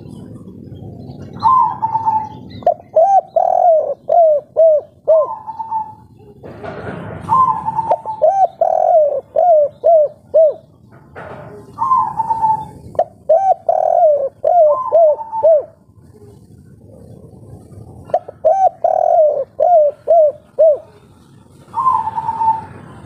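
Spotted dove (derkuku, a 'kuk 3' type) cooing in repeated phrases. Each phrase opens with a higher note, then runs into a quick string of short, falling coos. There are about four phrases a few seconds apart.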